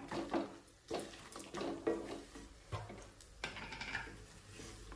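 Wooden spatula stirring and scraping a dry roasted mix of coconut pieces, red chillies and lentils around a non-stick kadai: soft, irregular scrapes and knocks a few times a second.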